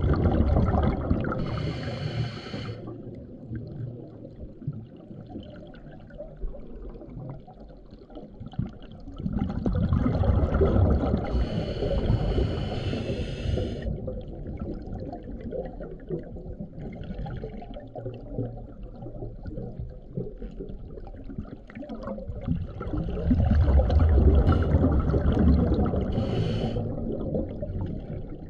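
Scuba diver breathing underwater through a regulator: three slow breaths, each a long rumble of exhaled bubbles ending in a short hiss.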